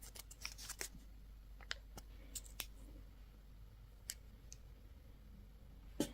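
Candy or toy packaging being handled: a quick run of small crinkles and clicks over the first few seconds, then a few scattered ticks and one sharper click near the end.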